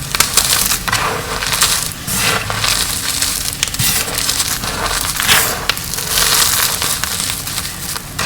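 Dyed gym chalk blocks being crushed, a dense, crisp crunching and crumbling with many sharp crackles throughout.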